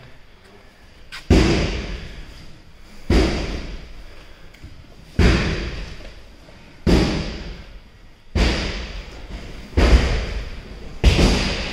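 A series of heavy thuds, seven of them about one and a half to two seconds apart, each struck sharply and ringing off in the hall.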